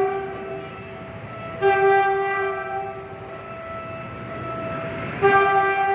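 Train horn of an approaching diesel locomotive sounding long blasts at a level crossing, one starting about one and a half seconds in and another near the end. Between the blasts a rising rumble of the oncoming train is heard.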